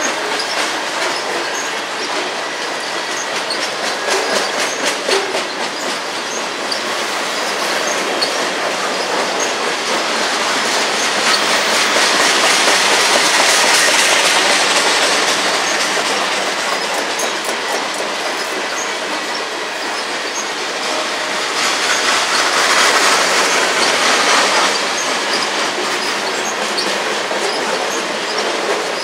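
Covered grain hopper cars of a freight train rolling past close by: a steady rumble of steel wheels on rail, with rapid clicking as wheels cross rail joints. The sound swells twice, about twelve seconds in and again about twenty-two seconds in, with a thin squealing tone during the first swell.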